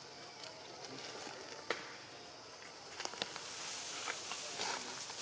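Light rustling with scattered clicks and taps; a sharp click comes a little under two seconds in, a few more around three seconds, then a hissing rustle builds up.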